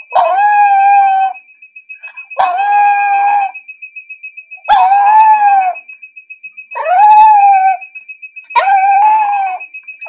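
Chihuahua howling: five long howls of about a second each, held at one pitch. Under them a high electronic beeping pulses rapidly and without a break: a digital door lock's alarm after wrong passcode entries.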